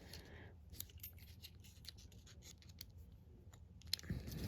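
Lock pick and tension wrench working inside a small Master Lock padlock: faint, irregular metallic clicks and scratches as the pins are probed. A louder handling noise comes near the end.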